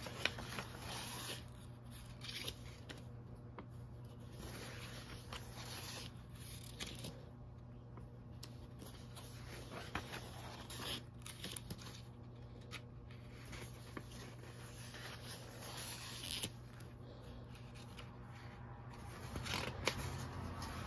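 Pages of a paperback coloring book being turned one after another: faint rustling and swishing of paper, with a few soft taps.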